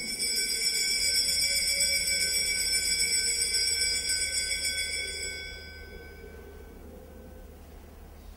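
Altar bell rung at the elevation of the chalice during the consecration at Mass: a bright metallic ring that starts suddenly and fades away over about six seconds.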